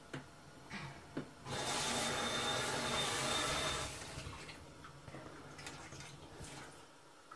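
A few light knocks, then water running from a tap for about two and a half seconds before it is turned off.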